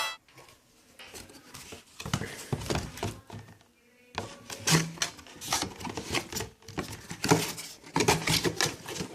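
Irregular clicks, taps and light knocks of hard objects being handled on a surface, in small clusters with short pauses, in a small room.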